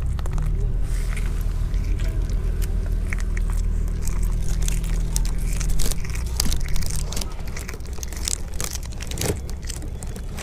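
A cat chewing a small raw fish, with many short sharp crunches, over a steady low rumble.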